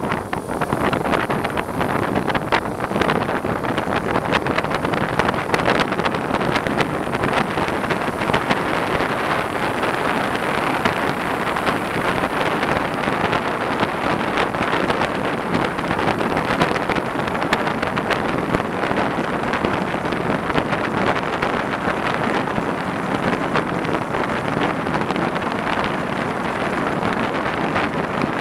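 Steady wind noise on the microphone of a camera on a moving bicycle.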